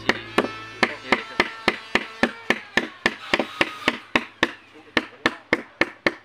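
A mallet tapping a carving chisel into wood in a steady rhythm, about three to four knocks a second.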